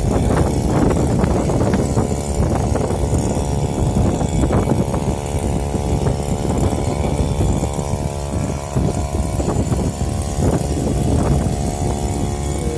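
Small engine-driven water pump running steadily for watering a shallot field.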